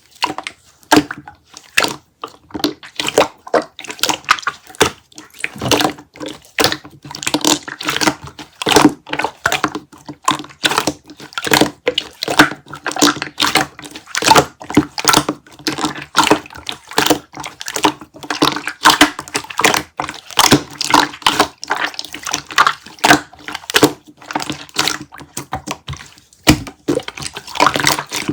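Melted kiwi konjac jelly making a dense run of wet, sticky squelches and clicks, with a short pause near the end.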